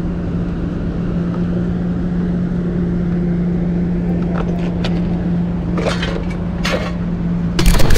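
A steady engine hum with low street noise, and a few short plastic clacks from about four seconds in as broken motorcycle fairing pieces are handled. A sudden loud burst breaks in near the end.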